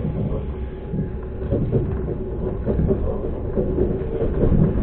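Passenger train running along the track, heard from aboard: a steady low rumble of wheels on rails with irregular knocks and a faint steady hum under it.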